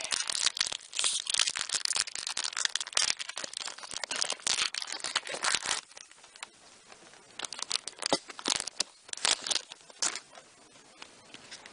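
Foil wrapper of a Pokémon trading card booster pack being torn open and crinkled in the hands: dense crackling for about six seconds, then only scattered crinkles and clicks.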